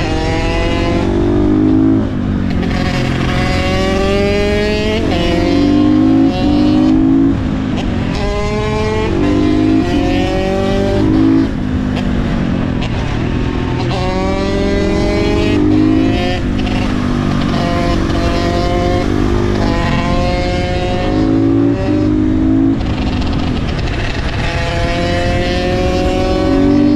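KTM 450 single-cylinder four-stroke supermoto engine, ridden hard: its pitch climbs as it accelerates, then drops off as the rider shifts or backs off, over and over.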